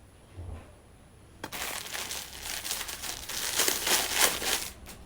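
Packaging crinkling as it is handled. It starts about a second and a half in, grows louder, and stops shortly before the end.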